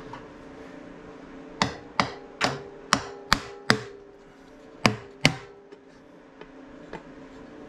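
Rubber hammer knocking on a Harley-Davidson Sportster's primary cover to break it free from its gasket. There are about eight sharp knocks, six in quick succession about two a second and then two more, each followed by a short metallic ring from the cover.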